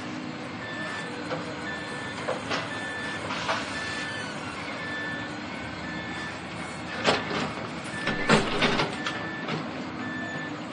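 Heavy demolition machinery running, with a reversing alarm beeping steadily about once every three-quarters of a second. Sudden crashes of falling debris break through, the loudest a little past the middle and a cluster soon after.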